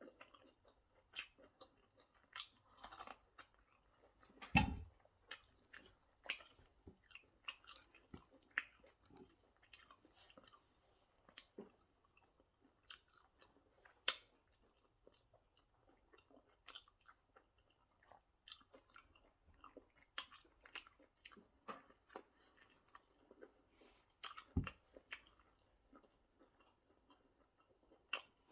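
Close-miked chewing of mouthfuls of pounded yam and egusi soup: irregular soft mouth clicks and smacks. A louder thump about four and a half seconds in, and another near the end.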